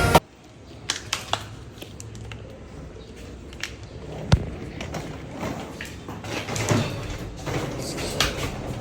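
A quiet room background with a few scattered light clicks and knocks; the sharpest knock comes just over four seconds in.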